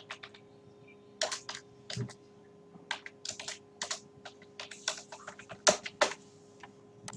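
Typing on a computer keyboard: irregular key presses in quick runs, with two louder strokes a little before the end, over a faint steady hum.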